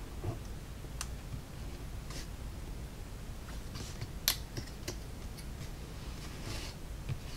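Scattered light clicks and short scratchy scrapes of laser-cut wood kit parts being cut free from their sheet by hand, with one sharper click about four seconds in.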